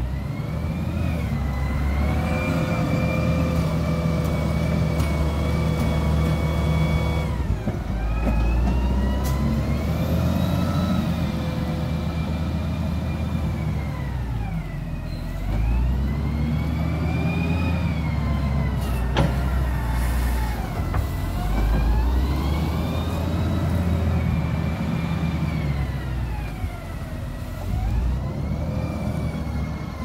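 SD300 wheel loader's diesel engine revving up and down over and over as it works, its pitch rising and falling every several seconds. One sharp knock comes about two-thirds of the way through.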